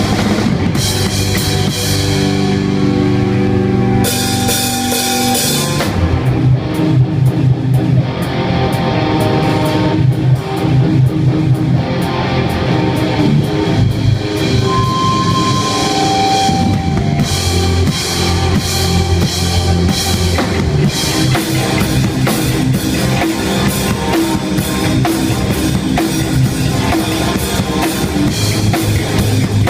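Hardcore band playing loud: a drum kit with fast, dense cymbal and snare strokes driving under guitar.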